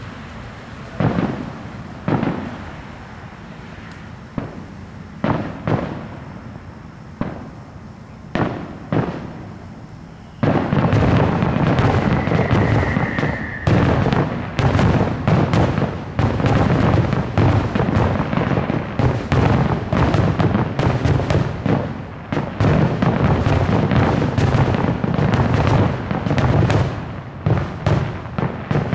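Aerial fireworks shells bursting. At first there are single booms about a second apart. From about ten seconds in comes a dense, unbroken barrage of bursts, with a brief high whistle a couple of seconds into it.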